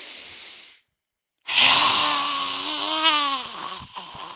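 A woman doing lion's breath: a short breathy inhale, a brief pause, then a forceful hissing exhale through the open mouth with her voice in it, lasting about two seconds and trailing off.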